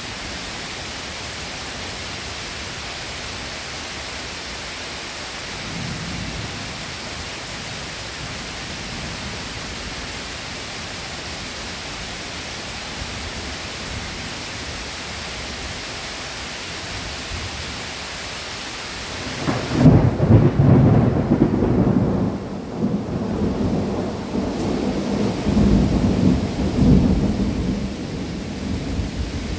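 Steady hiss of rain, then about two-thirds of the way through a loud, long roll of thunder that rumbles and crackles on to the end. A faint low rumble of distant thunder comes earlier, about a fifth of the way in.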